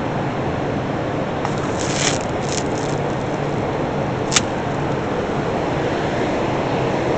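Steady rushing air and low hum of a cheese store's refrigeration and ventilation plant. A brief crinkle of plastic shrink-wrap comes about two seconds in, and a single sharp click a little after four seconds.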